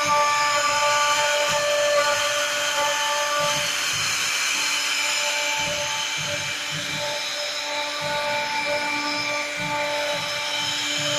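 Large CNC machine running: a steady whine in several tones over a hiss, the tones breaking off and coming back as it works.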